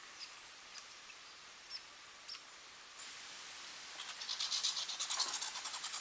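Scattered faint ticks, then about four seconds in a fast, evenly pulsing high-pitched trill from a calling insect or bird starts up and goes on.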